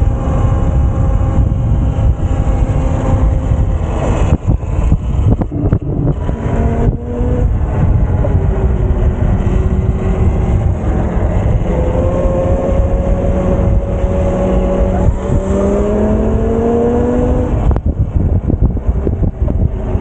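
Electric dirt bike's motor whining, its pitch falling and rising with speed, over a heavy low rumble of wind on the microphone. Clusters of knocks and rattles come about 4 to 7 seconds in and again near the end.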